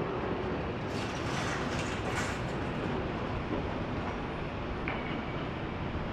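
Airbus A330 jet engines running, a steady rumble with a stronger hiss from about one to two and a half seconds in.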